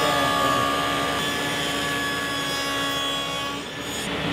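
Table saw running steadily while a cedar board is fed across it to cut dados, a constant whine of several held tones that drops away about three and a half seconds in.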